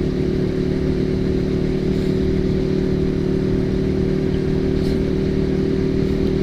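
Honda CB150R's single-cylinder engine running at a steady cruise through its aftermarket racing exhaust, the note holding an even pitch with no revving.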